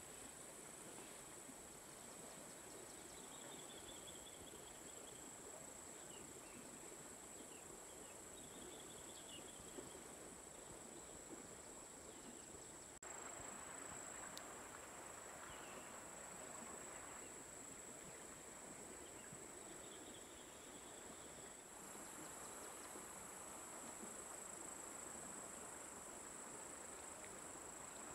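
Insects chirring in one steady high-pitched tone, faint, over quiet outdoor background noise, with a few faint brief chirps now and then.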